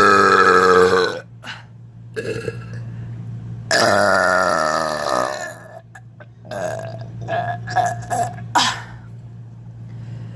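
A woman burping on purpose: two long, loud burps, the first right at the start and the second about four seconds in with a wavering pitch, then a few shorter, quieter sounds between about six and nine seconds.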